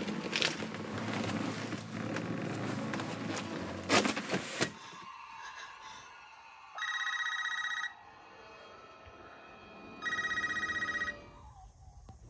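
A telephone ringing twice with a fast electronic trill, each ring about a second long, from a film playing on a laptop. Before it, a steady rushing noise with a few sharp knocks cuts off about five seconds in.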